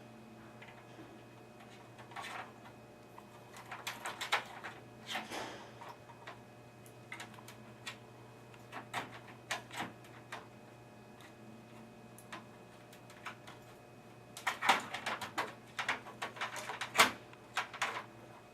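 Scattered clicks, taps and scrapes of hands working cable connectors and parts inside a desktop computer case, with a denser run of clicks near the end, over a steady low hum.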